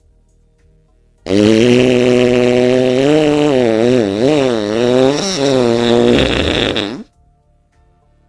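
A single long, drawn-out fart, about six seconds, starting a second in. It holds a low, steady buzzing pitch, wobbles up and down in the middle, then breaks into a low sputter and cuts off near the end.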